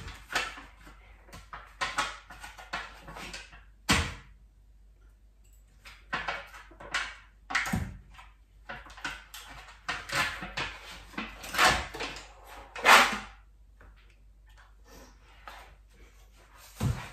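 Kitchen handling sounds as margarine is taken from a plastic tub and scooped into a stainless-steel mixing bowl: scattered scrapes and clicks with a few dull knocks.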